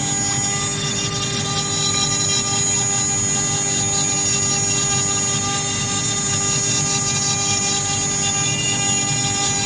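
CNC router's 1.5 kW spindle running steadily while its end mill cuts polystyrene foam on the rotary fourth axis: a steady whine with several fixed tones over the hiss of the cut.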